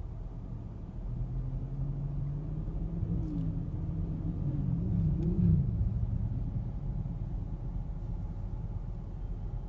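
Car engine and road noise heard from inside the cabin: a steady low rumble, with an engine note rising and falling in the middle, loudest about five seconds in.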